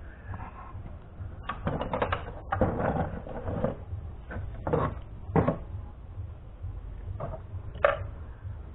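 White plastic housing parts of a Braun juicer clicking and knocking together as they are handled: a cluster of rapid clicks from about one and a half to four seconds in, then a few single knocks, one of the sharpest near the end, over a steady low rumble.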